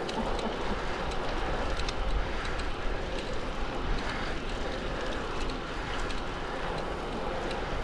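Wind blowing across the microphone of a moving road bike, mixed with its tyres rolling on asphalt: a steady noise with a deep rumble underneath.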